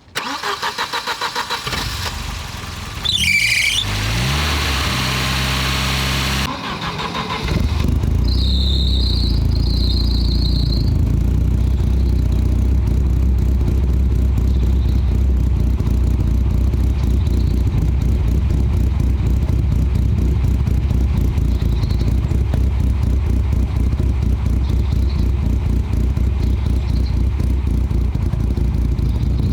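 Volvo 940's B230FK turbocharged four-cylinder engine cranking on the starter, catching about three seconds in with a squeal and rising revs, then settling into a steady idle. A brief high squeal comes over the idle a few seconds after it catches.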